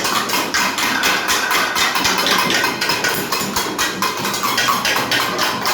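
Fast, continuous banging of struck objects or hand percussion, several hits a second, the kind of noisy beating used to wake people for the pre-dawn sahur meal.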